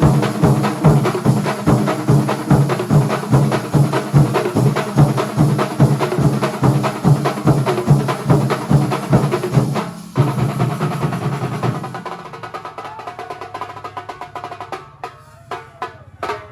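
Kerala thambolam percussion ensemble drumming a fast, even rhythm. The drumming briefly drops out about ten seconds in, then carries on and grows quieter and sparser near the end.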